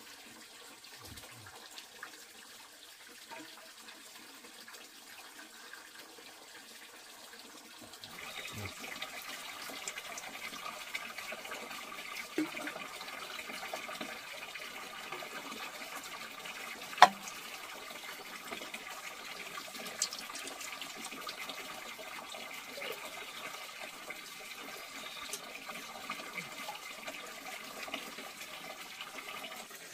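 Pork fat frying in a wok of hot rendered lard: a steady sizzle that grows louder about eight seconds in, with scattered sharp pops, one much louder than the rest a little past halfway.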